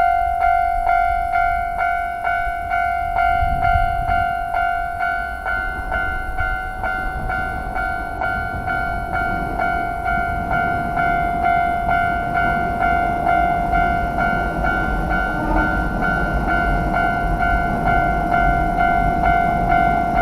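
Railway level-crossing warning bell ringing in a steady rhythm of about two strikes a second. A passing train's low rumble grows beneath it from about halfway through.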